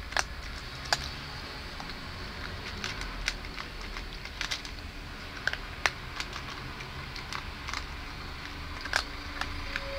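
A big cat crunching its food noisily: irregular sharp crunches, a dozen or so spaced unevenly, the loudest near the start and about nine seconds in.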